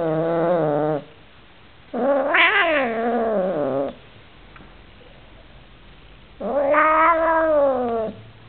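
Oriental Shorthair cat yowling in three long, drawn-out calls: one ends about a second in, the next rises and then falls in pitch, and the third arches near the end. The owner takes the yowling as the cat's complaint about a new housemate it dislikes.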